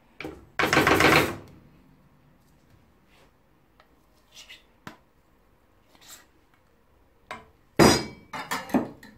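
Metal spoon scraping ghee out of a tin and knocking against an aluminium saucepan. A long scrape comes about half a second in, then a few faint clicks, then a sharp knock and several quicker knocks near the end.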